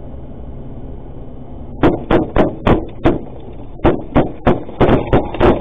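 Gunfire hitting the armoured cash van, heard from inside the cab: about a dozen sharp bangs in quick, irregular succession, starting about two seconds in over the steady road noise.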